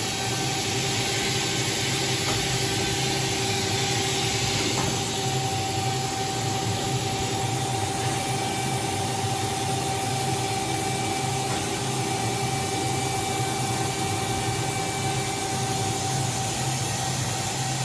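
2014 OKK HM-6300S CNC horizontal machining center running a program: a steady mechanical hum and hiss with a couple of steady tones held through.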